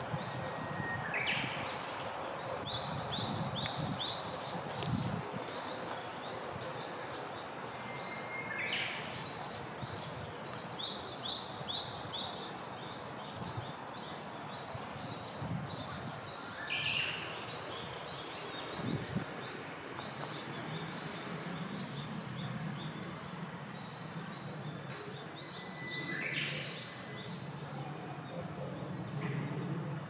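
Woodland birdsong: many small birds chirping constantly, while one bird sings the same short phrase four times, about every eight seconds, a steady note followed by a quick higher flourish. Under it lies a low, steady background hum.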